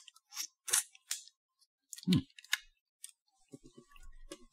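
Short clicks and crinkles from handling a small plastic portion cup of cola jelly, with a duller knock about two seconds in and a few soft low sounds near the end.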